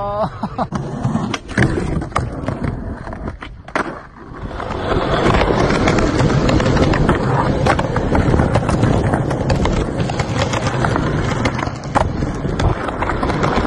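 Skateboard wheels rolling on a concrete sidewalk: after a few scattered knocks, a steady rolling rumble sets in about four seconds in, with sharp clacks here and there.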